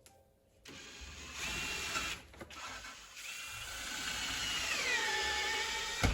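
A power drill driving screws in two runs, its motor whine sliding down in pitch as it loads up in the second run, then a sharp knock as it stops.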